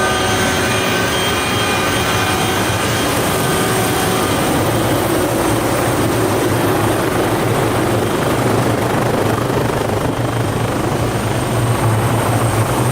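Helicopter running: a steady, loud rush of rotor and engine noise, with a low drone that grows stronger about eight seconds in.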